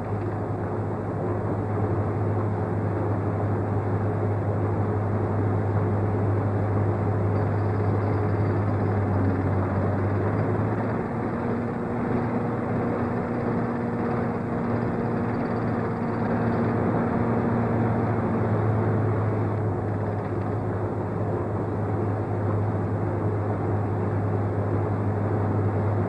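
Machinery running steadily: a low engine-like drone with a couple of steady tones above it, whose pitch shifts slightly about eleven seconds in.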